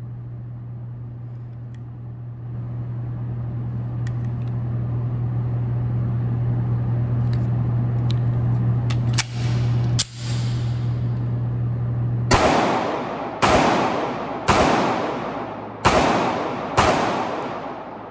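Five 9mm pistol shots from a BUL Armory SAS II Ultralight, spaced about a second apart, each with a ringing echo tail. They are preceded by a steady low hum and two sharper, quieter cracks.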